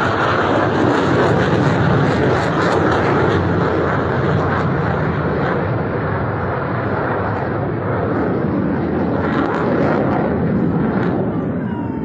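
Fighter jet engines flying past: a loud, steady jet rumble that comes in suddenly and holds without a break.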